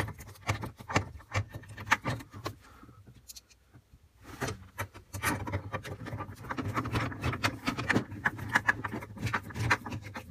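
Hand screwdriver turning the mounting screws of a replacement ice maker: a run of small metallic clicks and scrapes, pausing for about a second and a half around three seconds in.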